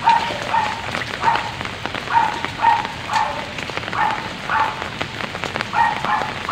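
Steady rain falling, with drops pattering close by. Over it an animal gives short, pitched calls about twice a second, often in pairs.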